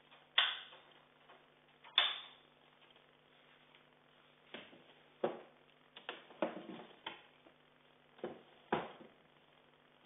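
Scattered knocks and thuds from a power wheelchair being shoved into place against a bed and a wooden transfer board being handled. The two sharpest knocks come about half a second and two seconds in, with a busier run of small knocks around six to seven seconds. A faint steady hum runs underneath.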